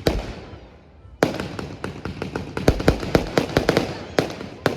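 Fireworks display: one loud bang with a long fading tail, then, from about a second in, a rapid run of sharp crackling reports, ending with another loud bang.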